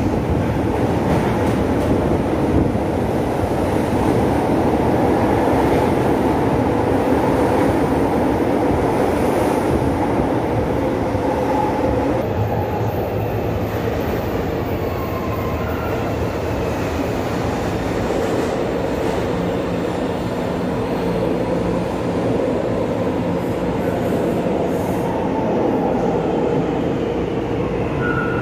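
São Paulo Metro trains running along the platform: a steady, loud rumble of wheels on rail and car bodies as a train moves past. Late on, a faint whine glides in pitch as the next train pulls in and slows.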